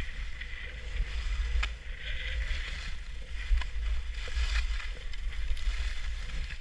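Skis hissing and scraping over packed snow on a downhill run, with wind rumbling on the microphone.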